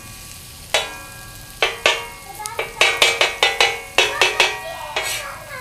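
Spatula strokes clanking and scraping on a tawa while stirring onions frying in oil, over a light sizzle. The strokes come a few at a time at first, then quicken to about five a second in the second half.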